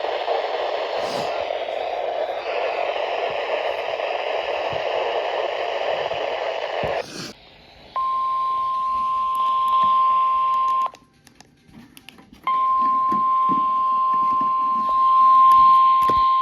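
Weather radio receiver hiss and static for about seven seconds, then the NOAA Weather Radio 1050 Hz warning alarm tone: a single steady beep, held about three seconds, a short break, then held again for over four seconds. The tone is the signal that a warning broadcast, here a severe thunderstorm warning, is about to follow.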